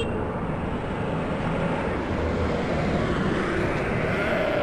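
Steady rumbling noise, strongest in the low end, with a faint tone that rises slightly near the end.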